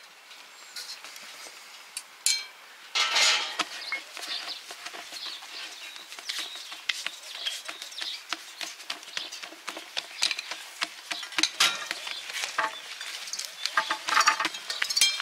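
Hands patting and pressing bread dough flat on a floured wooden board: quick, irregular soft slaps and taps, several a second, starting about three seconds in.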